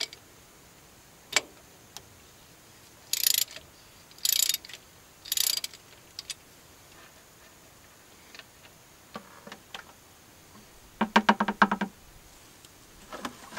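Half-inch drive ratchet clicking on the transmission drain plug as it is backed out: three short bursts of rapid clicking, then a faster run of clicks about a second long near the end, with a few scattered knocks of metal tools.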